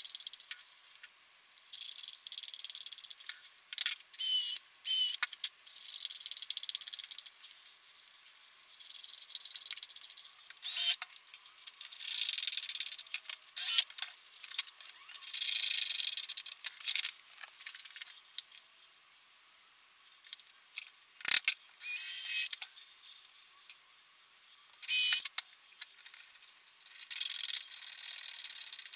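Hand screwdriver driving small wood screws to fit guitar hardware (pickup ring and strap button) into a Telecaster body: repeated short bursts of turning, with metallic clicks, rattles and a few brief squeaks, separated by pauses.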